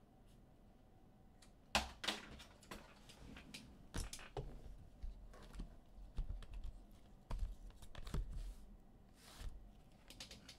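Faint, irregular clicks and taps of typing on a computer keyboard, with a sharper knock about two seconds in.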